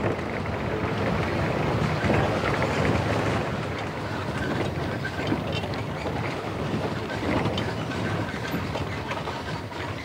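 Maruti Gypsy safari jeep driving along a rough dirt track: the engine running under a steady rattle and rumble of the vehicle over the ground.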